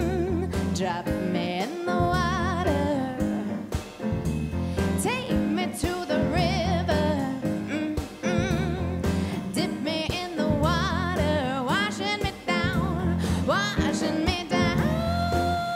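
A live band plays a song: a woman sings a wavering melody with heavy vibrato into a handheld microphone over drum kit, guitar and a steady bass line. A long steady note comes in near the end.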